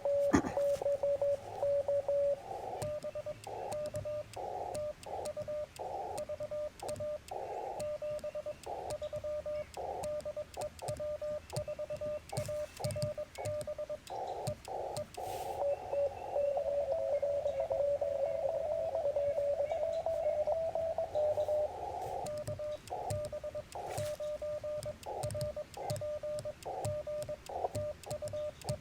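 Morse code on a Yaesu FT-891 HF transceiver's speaker: a single steady tone keyed in dits and dahs over a hiss of band noise, as ham radio stations exchange a CW contact. For several seconds past the middle, a second, slightly higher and wavering signal overlaps.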